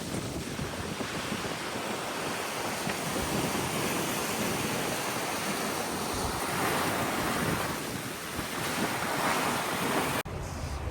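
Strong wind buffeting the microphone over rushing sea water and breaking waves around a sailboat in heavy weather, swelling louder twice in the second half. Near the end it cuts off suddenly to a quieter low rumble.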